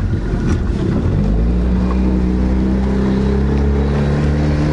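Boat's outboard motor running under way; its pitch climbs about a second in as it speeds up, then holds steady.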